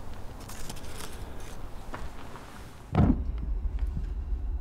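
Blacksmith's forge fire ticking and crackling lightly, then about three seconds in a sudden whoosh as the fire flares up, settling into a steady low roar.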